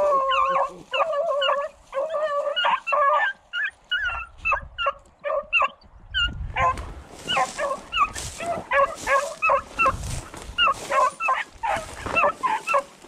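Beagles baying in short, repeated, high yelps while running a rabbit. From about halfway in, several voices overlap, along with the rustle of dry brush.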